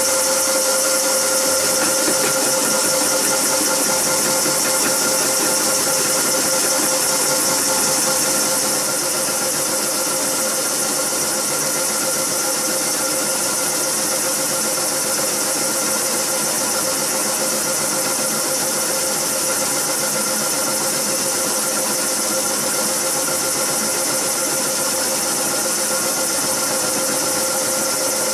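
Milling machine running steadily with a freshly sharpened end mill face-cutting aluminium 1 mm deep: a steady whine over a hiss of cutting, a little quieter about eight seconds in.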